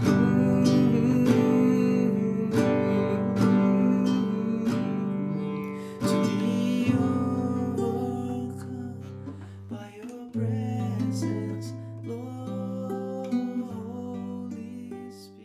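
Nylon-string classical guitar strummed in slow chords, the sound fading away near the end.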